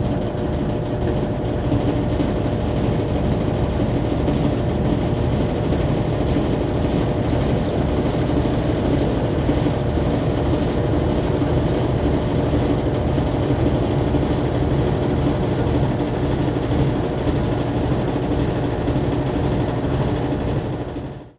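Top-load washing machine running its wash cycle with a continuous loud rattle over a steady mechanical hum, fading out near the end. It is the kind of rattle often caused by the washer not standing level or by its water hoses knocking.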